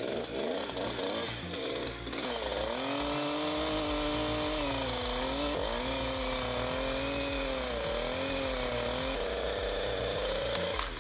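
A machine's engine running hard under a changing load, its pitch dipping and recovering several times, with a high steady whine over it.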